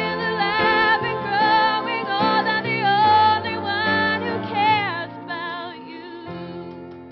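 Soundtrack song: a woman singing a wavering, vibrato-rich melody over instrumental accompaniment. The voice drops out about five seconds in and the music gets quieter.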